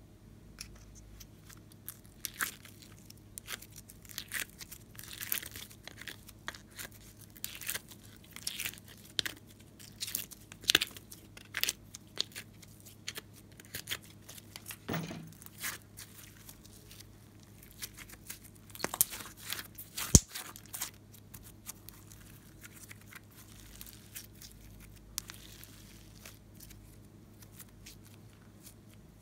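Rainbow slime being peeled out of a plastic mould and squeezed by hand, giving sticky crackling and popping in quick irregular clicks, with one sharp loud click about two-thirds of the way through. Near the end the crackles thin out and soften as the slime is stretched.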